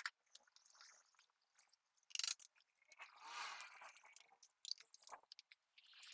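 Scattered small clicks and scrapes of metal engine parts being handled, with a sharp knock about two seconds in and a short rushing noise a second later.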